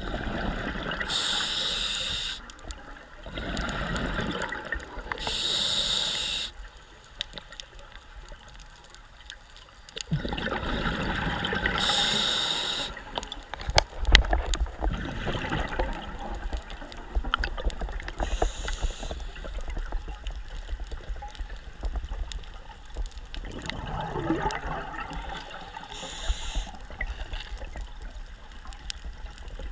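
Scuba diver breathing through a regulator underwater, heard through the camera housing: bursts of hissing and bubbling a second or two long, several times over, with a low rumble of water underneath. One sharp knock comes about fourteen seconds in as the camera is jolted.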